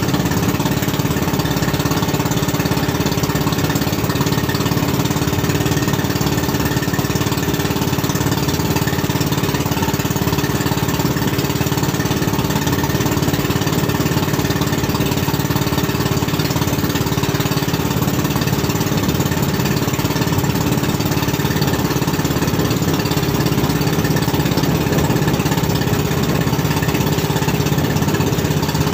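A small engine running steadily at one constant speed, with no change in pitch or level.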